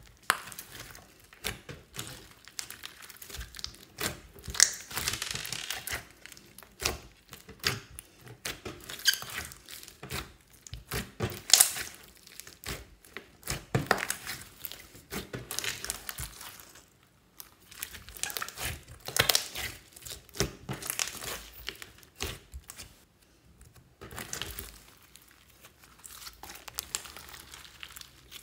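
Hands squeezing, kneading and stretching a large mass of clear slime mixed with clay and makeup. The sticky slime gives irregular clicks and pops, with short pauses between handfuls.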